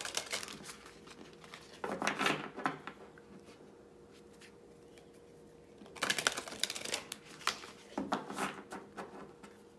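A deck of oracle cards being shuffled by hand, the cards sliding and slapping against each other in four short bursts of about a second each, with a pause of about three seconds in the middle.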